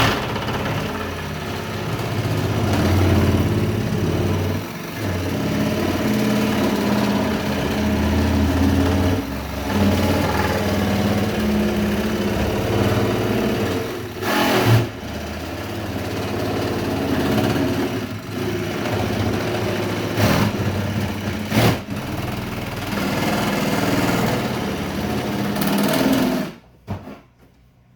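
Handheld power tool running as it cuts through a plastic bucket lid, its pitch wavering with the load and pausing briefly a few times. It stops near the end.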